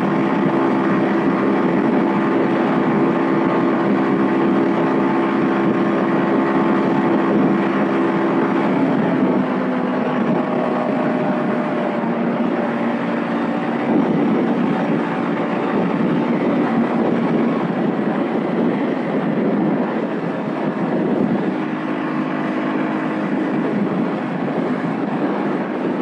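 Vitacci XMT 250 motorcycle engine running at highway speed under wind and road noise. About nine seconds in the engine note drops and eases off as the bike slows down.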